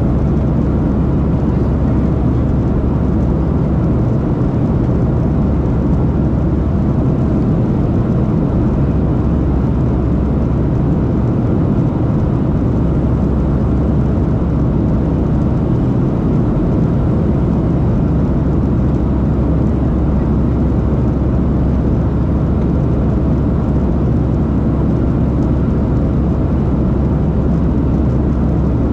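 Cabin noise of a Boeing 737-700 in flight, heard inside the cabin from a window seat by the wing: a steady, deep rushing drone of its CFM56-7B turbofan engines and the air streaming past the fuselage.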